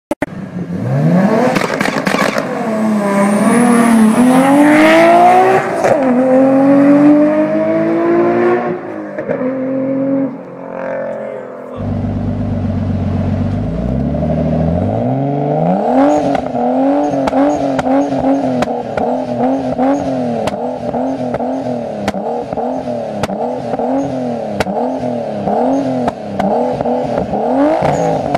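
A 2001 Nissan Skyline GT-R R34's twin-turbo straight-six accelerates hard, its revs climbing several times with gear changes. About twelve seconds in, the sound changes to a 1997 Nissan Skyline R33 with a Blitz Nur Spec R exhaust, revved up from idle and then blipped over and over, about one blip a second.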